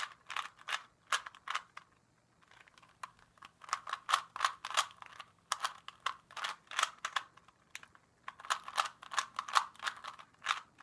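Rubik's Cube layers being turned by hand: quick runs of plastic clicking and clacking, pausing briefly about two seconds in and again near eight seconds in. The turns are orienting the yellow last-layer pieces face up.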